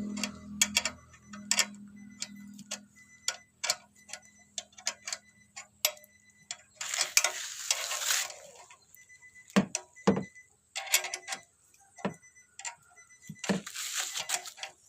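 Irregular metallic clicks and clinks of a 10 mm wrench working on a turbo whistler exhaust tip being fitted to a car's tailpipe. A low hum fades out in the first few seconds, and there are two short scraping rustles, about seven seconds in and near the end.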